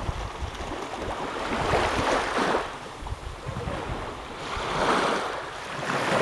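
Small sea waves washing onto a sandy beach, rising and falling in three swells, with wind rumbling on the microphone.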